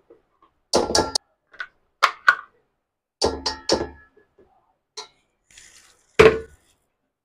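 A plastic mixer-grinder jar is knocked and tapped against a steel bowl to shake thick urad dal batter out of it, giving a series of short, sharp knocks about a second apart, with the loudest one near the end.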